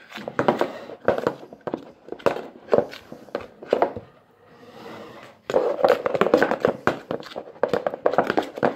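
A spoon stirring a wet mixture of torn napkins, water, shampoo and hand soap in a bowl: irregular tapping and scraping knocks, with a short lull about four seconds in.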